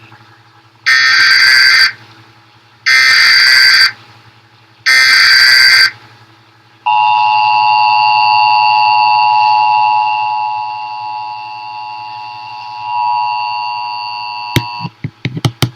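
Emergency Alert System header: three loud one-second bursts of screeching SAME data tones, two seconds apart, then a long steady attention tone announcing the next warning, which sags in level partway through and cuts off about a second before the end, followed by a few sharp clicks.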